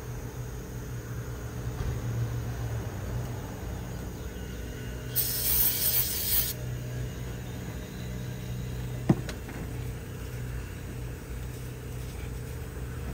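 Aerosol throttle-body cleaner sprayed in one burst of about a second and a half, a loud hiss, over a steady low hum. A single sharp click comes about three seconds after the spray.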